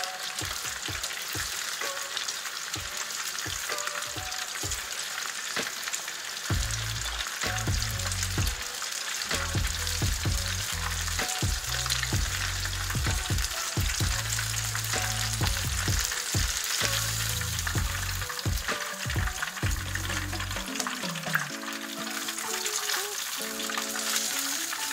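Battered pork pieces deep-frying in hot oil in a wok: a steady crackling sizzle, with chopsticks clicking against the pan now and then as the pieces are stirred.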